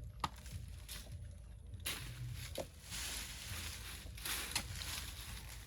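Soil being dug and scraped with a hand tool: a few sharp knocks about two seconds apart, with a stretch of rustling, hissing scrape in the middle.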